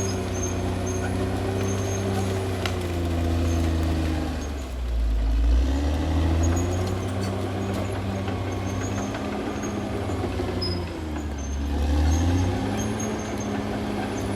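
Caterpillar D6R XL bulldozer's diesel engine running under load, with a steady low rumble. Its pitch drops twice as the engine lugs, about five seconds in and again near the end, then climbs back.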